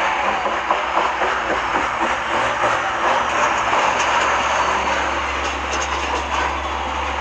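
Truck engine held at high revs during a burnout, with a dense rushing noise from the spinning tyres; a steady low drone strengthens about halfway through.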